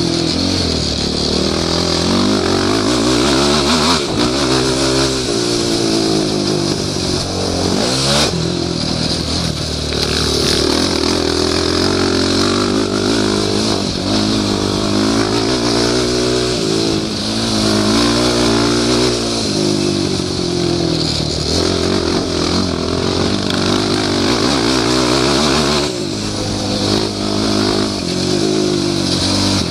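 Yamaha YFZ450 quad's single-cylinder four-stroke engine ridden hard, heard from on board: its pitch climbs and drops again and again as it accelerates, shifts and backs off for corners.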